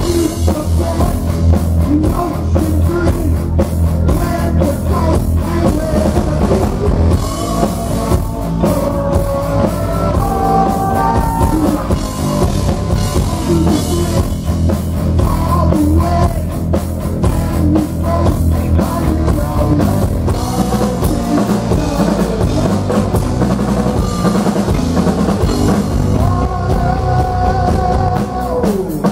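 Heavy metal band playing live, loud: electric guitar, bass and a drum kit, with the singer's voice coming in over them. Near the end, a note slides down in pitch.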